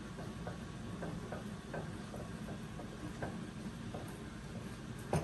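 Faint, irregular light ticks of a utensil against a casserole dish while queso is spread over the top, over a low steady background, ending in one louder knock.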